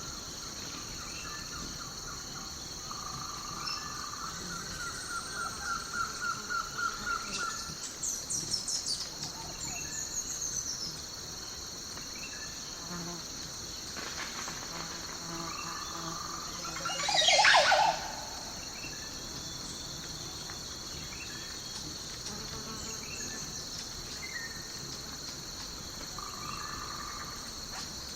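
Nature ambience: a steady, high insect drone with birds calling over it. There are repeated trilled calls in the first several seconds, and one louder sweeping call about 17 seconds in.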